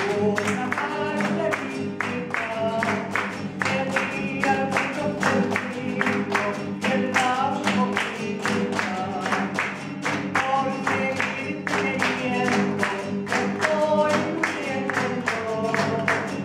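Live Chilean cueca: strummed guitars and voices singing, with a room of people clapping the beat steadily.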